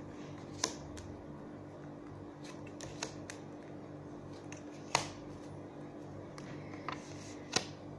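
A deck of tarot cards being shuffled by hand: scattered soft clicks and flicks of the cards, a few seconds apart, over a faint steady hum.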